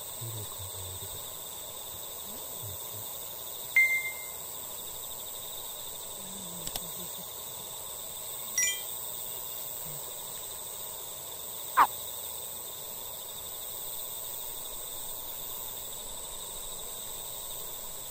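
Evening outdoor ambience of insects chirring steadily and high-pitched. Over it come a few short ringing calls, about four, eight and a half and twelve seconds in, the last a quick falling note and the loudest, plus a single click near seven seconds.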